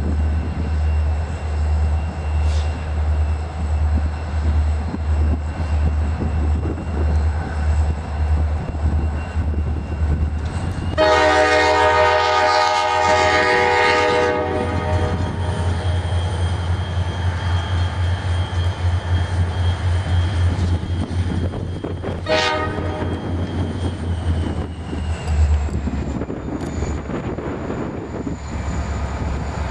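Norfolk Southern diesel locomotives running past slowly with a steady low throb, their Nathan K5LA five-chime air horn sounding one long blast of about three seconds roughly eleven seconds in and a short blast about ten seconds later.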